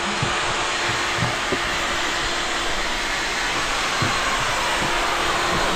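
A steady rushing noise with a faint low hum under it and a few light knocks.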